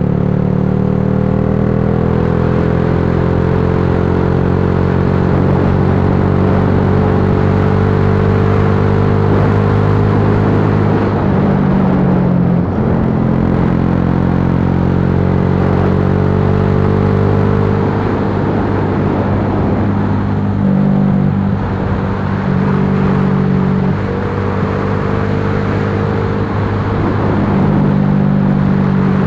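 Yamaha Lagenda 115Fi's single-cylinder four-stroke engine running on the move, its pitch easing down slowly and then dropping and rising again several times as the throttle changes. A steady rush of wind and road noise runs under it.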